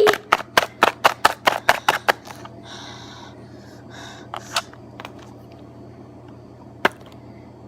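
Rapid sharp hand claps, about five a second, that stop about two seconds in. They give way to quiet room sound with a little rustling and one sharp knock near the end.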